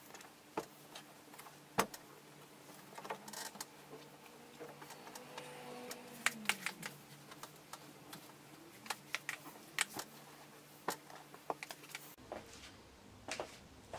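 Irregular light clicks and taps, scattered unevenly, with a faint tone sliding downward about six seconds in.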